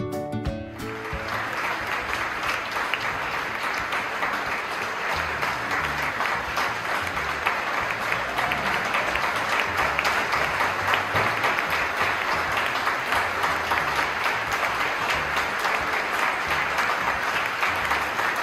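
Concert-hall audience applauding: dense, steady clapping that starts about a second in and stops near the end.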